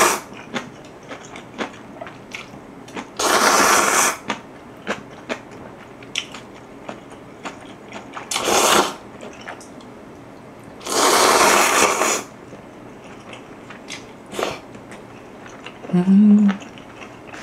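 A person loudly slurping spicy instant ramyeon noodles, with three long slurps of about a second each. Between them come small wet chewing clicks, and near the end there is a short closed-mouth hum.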